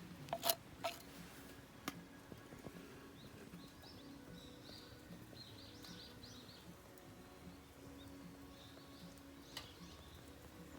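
Faint crackling of a wood fire, with a few sharp pops in the first second and another about two seconds in, and thin high squeaks and hisses in the middle.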